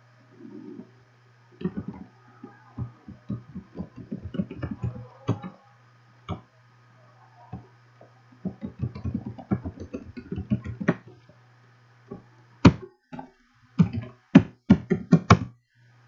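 Computer keyboard typing in quick bursts, with a run of louder, separate key strikes near the end, over a low electrical hum.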